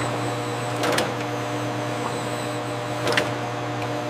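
Production-line machinery running with a steady hum and a short mechanical swish about every two seconds, like a machine cycling.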